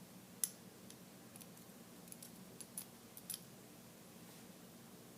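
A scattering of light clicks from small revolver parts being handled during disassembly of the cylinder latch and its spring. The sharpest click comes about half a second in, and a small cluster follows around three seconds in.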